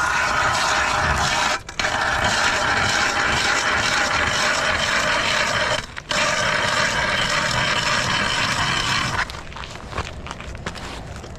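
Hand ice auger boring into lake ice: a steady grinding scrape of the blades cutting, broken twice for a moment, that stops about nine seconds in, leaving faint clicks and knocks.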